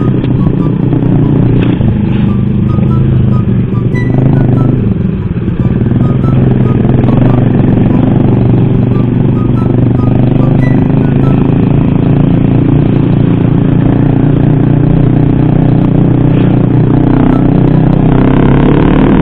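Motorcycle engine running steadily at cruising speed, a continuous low drone while riding in traffic.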